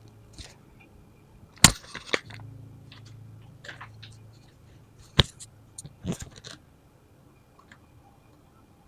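Plastic Lego pieces clicking and tapping as they are handled and tried together: a handful of sharp clicks, the loudest about one and a half seconds in, and a few more about five and six seconds in.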